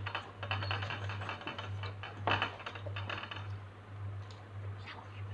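Small clicks and rustling handling noises, with one sharper click a little past two seconds in, thinning out to a few scattered clicks near the end, over a steady low hum.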